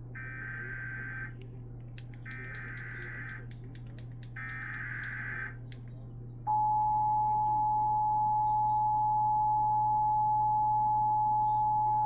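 Emergency Alert System header: three bursts of SAME digital data, each about a second long with a second's gap between. About six and a half seconds in, the steady two-tone EAS attention signal starts suddenly, much louder, and holds.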